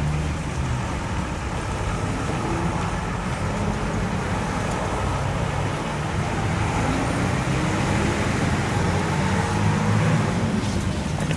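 Busy high street traffic: cars and other motor vehicles driving past in a continuous wash of road noise, with the low hum of engines swelling and fading as they pass.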